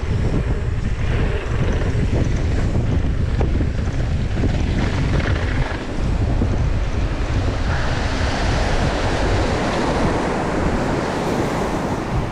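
Wind buffeting the microphone of a camera on a fast-moving mountain bike, with the tyres rumbling over a dirt trail. About eight seconds in, the low rumble eases and a steady hiss takes over.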